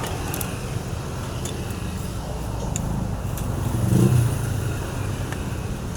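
Small two-stroke chainsaw engine running steadily, with a brief rise in speed about four seconds in.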